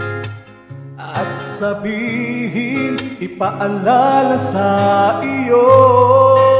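Man singing a Filipino love ballad over a karaoke backing track. After a brief pause near the start he comes back in, and he holds a long note near the end.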